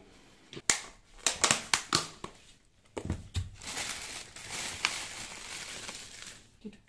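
Thin plastic takeaway food tubs being opened and handled: a quick run of sharp cracks and snaps as the lids come off, then a softer crinkling rustle of the plastic.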